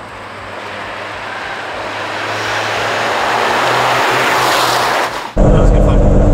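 Toyota GR Yaris H2's hydrogen-burning turbocharged three-cylinder engine as the car approaches and passes close by, the noise building steadily to a peak about four and a half seconds in. It then switches abruptly to the engine heard loud from inside the cabin.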